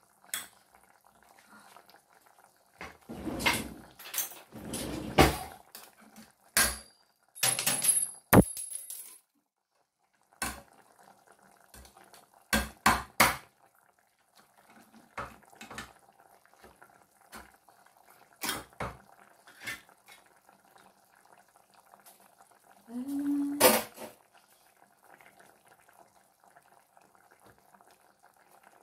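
Metal cookware clatter: a saucepan, its lid and utensils knocking and scraping in a series of separate clanks and a few longer scrapes, over a faint steady hum.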